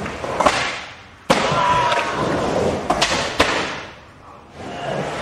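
Skateboard wheels rolling on a wooden ramp, the rush swelling and fading, with several sharp clacks of the board and trucks striking the ramp and coping.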